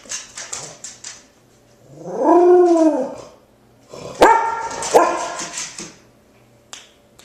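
Pet dog excited by deer outside: one long whine that rises and then falls, followed about a second later by two sharp barks.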